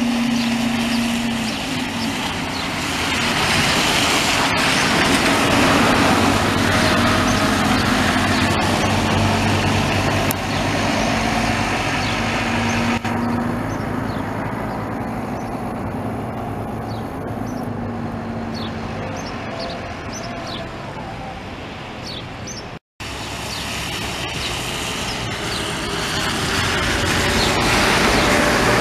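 Diesel buses pulling away and driving past on a wet road: a steady engine drone with tyre hiss. The sound cuts out for a moment about three-quarters of the way through.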